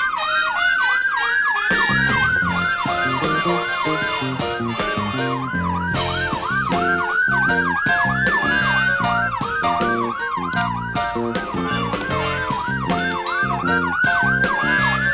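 Police-style siren sound, with a fast yelp warbling several times a second and a slower wail that rises and falls about every six seconds, played over music that comes in with a steady beat about a second in.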